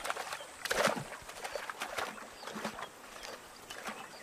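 Animals splashing through shallow floodwater: a run of irregular splashes, the loudest about a second in.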